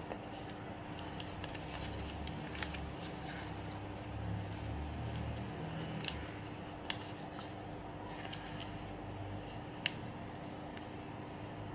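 Origami paper being creased and folded by hand: soft paper rustle with a handful of sharp, crisp ticks as folds are pressed, over a steady low hum.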